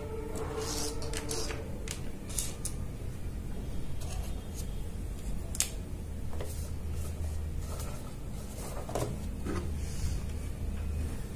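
Handling noise on a tabletop: a hair trimmer and its charging cable being moved and picked up, giving a scatter of light clicks, taps and rustles, the sharpest about five and a half seconds in, over a low steady hum.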